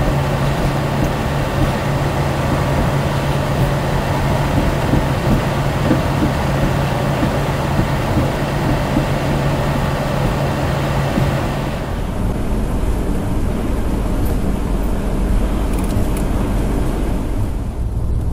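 Motorhome driving at highway speed, heard from inside the cab: steady engine and road noise with a constant hum. About twelve seconds in the hum drops away, leaving a lower rumble.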